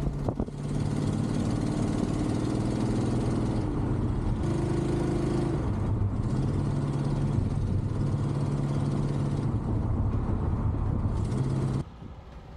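AMC Javelin engine running as the car drives along, with road and wind noise; the engine note steps up and down a few times. Near the end it drops suddenly to a fainter, more distant engine sound.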